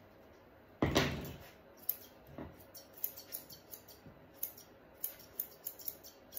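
Grooming scissors snipping in quick small cuts, trimming the fur around a puppy's paw, several snips a second from about two and a half seconds in. A single loud clunk about a second in.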